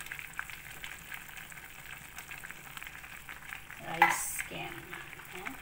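Liquid boiling hard in a pot: a steady bubbling crackle of popping bubbles. About four seconds in comes one brief, much louder sound, followed by a faint voice.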